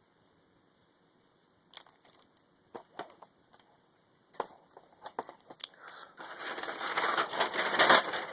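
DVD cases being handled: scattered clicks and taps, then, about six seconds in, a dense crinkling of plastic packaging, loudest near the end.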